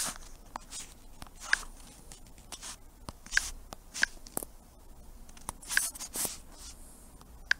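About ten light, sharp clicks and taps at irregular intervals over quiet room tone.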